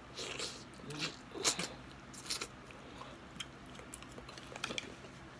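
Close-miked chewing and eating of shrimp, with a scattering of short sharp clicks and crackles, the loudest about a second and a half in and again a little after two seconds.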